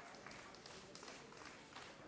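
Faint audience applause, pulsing in a steady rhythm of about three claps a second.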